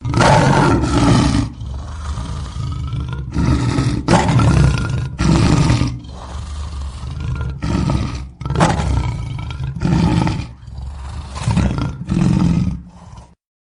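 Lion roaring and growling in a string of about ten heavy surges with brief dips between them, cut off abruptly near the end.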